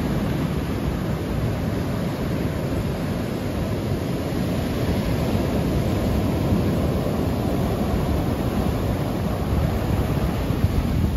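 Surf breaking on a sandy beach, a steady loud rush of waves with wind rumbling on the microphone.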